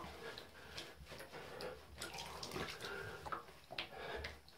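Shallow bathwater splashing and sloshing in a bathtub as a wet cat is lathered by hand and shifts about in it, in short, irregular splashes.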